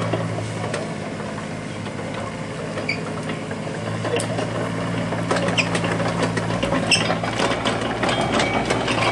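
Kubota U-25 mini excavator's diesel engine running steadily while the machine travels forward, with clanks and knocks from its rubber-padded steel tracks that come more often from about halfway through.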